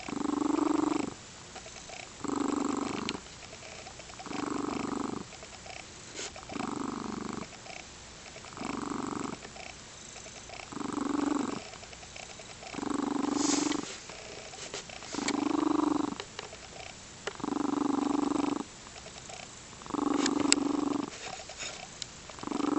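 Lynx point Siamese cat purring: a rumbling purr that swells in pulses about every two seconds, with each breath.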